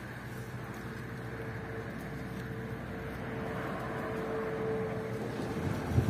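Steady mechanical hum of an engine running, with a thin steady whine over it; it grows slowly louder.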